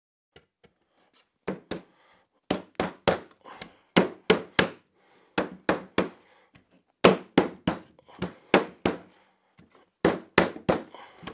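Sharp wooden knocks, mostly in quick runs of three, as a doweled pine table frame is struck to drive its glued dowel joints home.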